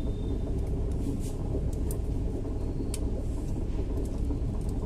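Steady low background rumble, with a few light clicks as a flat ribbon cable is pressed and seated into a connector on a programmer adapter board.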